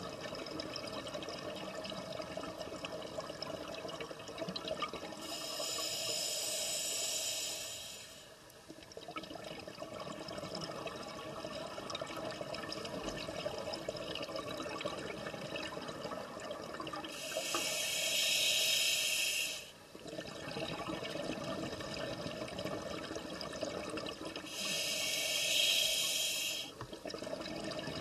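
Scuba diver breathing through a regulator underwater: three hissing inhalations, each two to three seconds long, with a steady bubbling rush of exhaled air between them.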